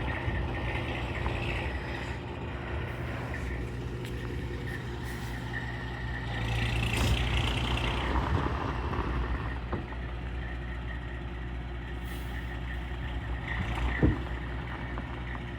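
Truck engine running steadily, swelling briefly with a hiss about seven seconds in, and a single sharp knock near the end.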